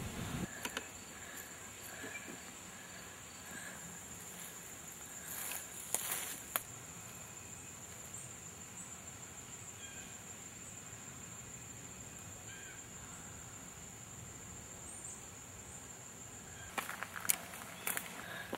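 Outdoor ambience dominated by a steady, high-pitched insect drone, with faint short chirps. Brief bursts of rustling and clicks come about six seconds in and again near the end.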